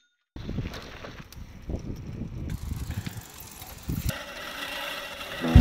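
A bicycle with a manual reel push mower fitted in place of its front wheel, rolling along paving: the mower and bike mechanism rattle and tick over a low rumble of the wheels.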